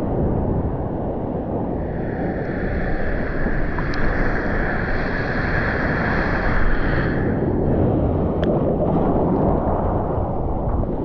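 Sea water sloshing and splashing around an action camera held at the surface, with wind buffeting the microphone. A higher rushing hiss joins for about five seconds in the middle.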